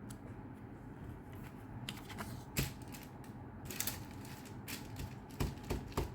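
Rubber stamp tapped on an ink pad and pressed onto paper: a dozen or so light, irregular clicks and knocks, starting about two seconds in.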